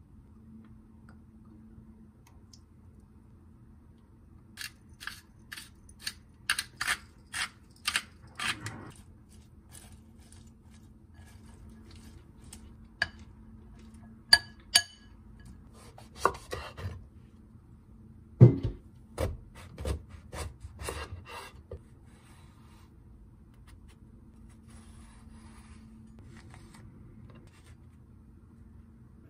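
Metal spoons clinking against a glass mixing bowl as shredded cabbage is tossed with dressing: runs of sharp clicks starting a few seconds in, about two a second at first, then more scattered, with one dull thump about two-thirds of the way through. A steady low hum underneath.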